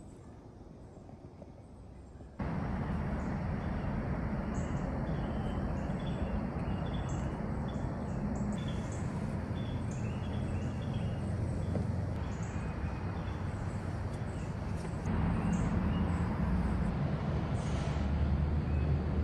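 Outdoor garden ambience: small birds chirping in short repeated notes over a steady low rumble. The ambience starts abruptly a couple of seconds in and grows a little louder near the end.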